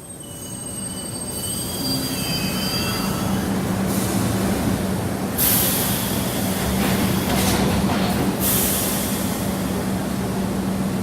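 Subway train running, fading in over the first couple of seconds, with a high wavering wheel squeal early on over a steady low hum and rumble. Louder rushes of noise come about halfway through and again a little later.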